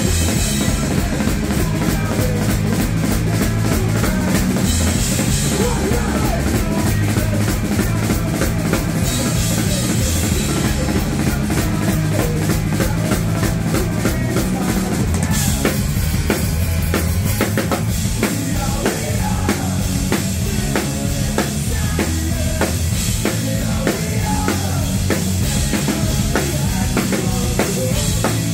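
Punk rock band playing live, heard close to the stage amplifiers: a drum kit with bass drum and crashing cymbals under electric guitars and bass. About halfway through, the drumming settles into a fast, even beat.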